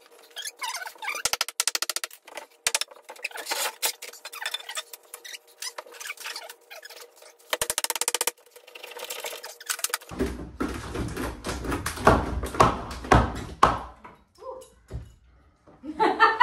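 Irregular knocking, tapping and clattering of tools and wood being handled at a wall opened for framing work. About ten seconds in comes a heavier stretch of thumps and scraping against the wall, lasting some four seconds.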